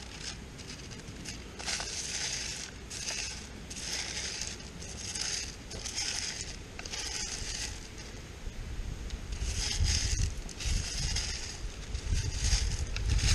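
Pebbles and wet gravel being raked and stirred by hand across a wire-mesh sifting screen: a gritty rattling in repeated strokes, about one a second.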